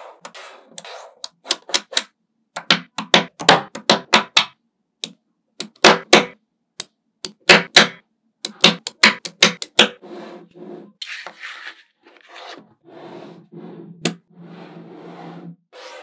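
Small magnetic balls snapping together with sharp clicks, in quick clusters of several at a time. For the last several seconds they rub and scrape against each other, with only a few clicks.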